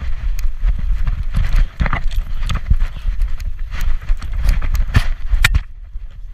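Irregular knocking and rubbing of a GoPro housing strapped to a walking small dog's back, jostled with each step, over a steady low rumble of handling and wind. A sharp click comes about five and a half seconds in, followed by a short quieter stretch.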